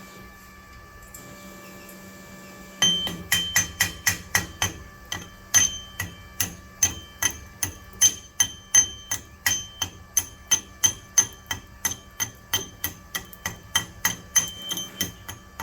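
A hammer striking steel in quick, ringing blows, about three a second, starting about three seconds in. This is most likely a chipping hammer knocking slag off a 7018 weld bead on a steel test plate. Before the strikes, a steady hum is heard.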